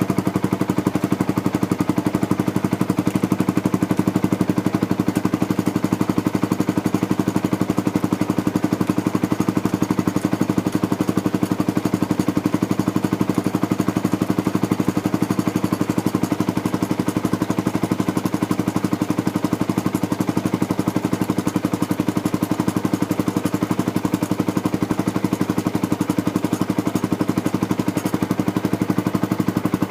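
Yamaha YZF-R125's single-cylinder four-stroke engine idling steadily through a Scorpion exhaust with the silencer baffle fitted, an even, rapid exhaust beat with no revving.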